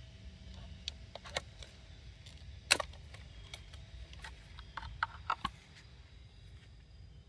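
Sharp clicks and light knocks of a plastic fuel pump module housing and its brackets being handled and snapped together. The loudest click comes a little under three seconds in, with a quick cluster of clicks around five seconds.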